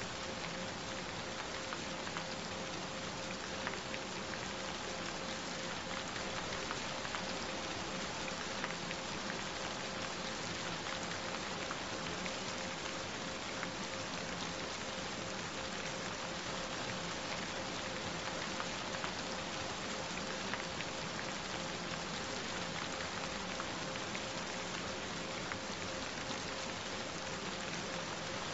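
Steady rain falling, a continuous hiss with faint scattered drop ticks. Under it runs a steady tone held at one pitch throughout, one of the 'Hz frequencies' these affirmation tracks add.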